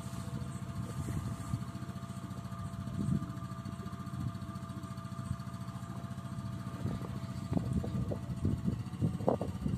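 Lifan 150cc single-cylinder four-stroke fuel-injected engine of a cab trike idling steadily, with a few light knocks near the end.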